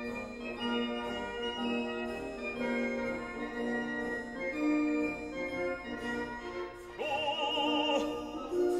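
Background music: held, organ-like chords for about seven seconds, then a singer comes in with a wide, wavering vibrato in an operatic style.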